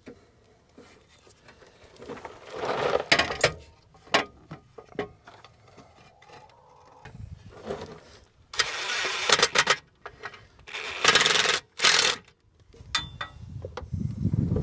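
Intermittent bursts of metallic scraping and rattling with a few sharp knocks, from hand work fitting a steel transmission cross member under a pickup. There are three main bursts, each about a second or more long: a few seconds in, and twice in the second half.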